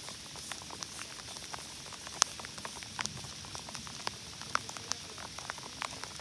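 Rain falling, a steady hiss broken by irregular sharp ticks of single drops landing, one louder tick about two seconds in.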